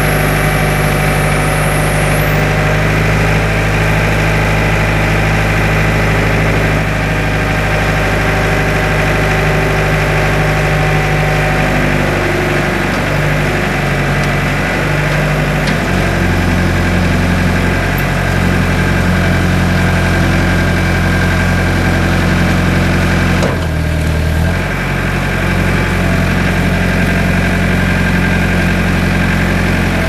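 Terex TX5519 telehandler's diesel engine running steadily under hydraulic load while the telescopic boom lifts logs high and lowers them. The engine note shifts a few times, around halfway through, and dips briefly about two-thirds of the way in.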